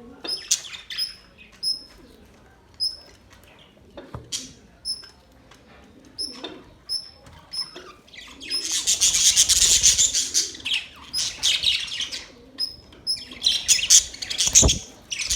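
Birds chirping: a short high chirp repeats every second or so, with bursts of dense, scratchy chattering around the middle and again near the end. A single knock comes near the end.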